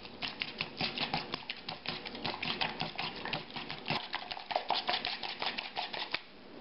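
Whisk beating raw eggs in a plastic bowl: rapid, steady clicking and tapping of the whisk against the bowl with the egg sloshing, stopping near the end.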